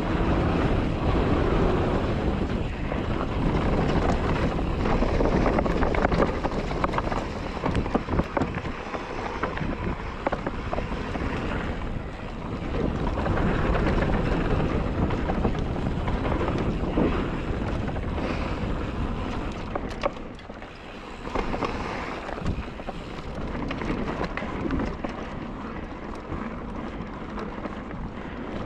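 Wind buffeting the microphone on a mountain bike riding down a dirt trail, mixed with tyre noise and scattered clicks and knocks from the bike. The noise eases briefly about two-thirds of the way through.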